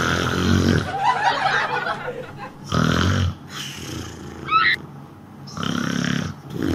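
A man snoring loudly, an exaggerated snore put on as a prank: three rattling snores about three seconds apart, with quieter breathing sounds between them.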